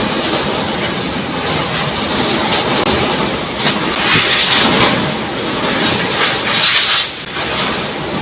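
Strong typhoon wind blowing hard, a loud steady rush that swells in gusts about four and seven seconds in.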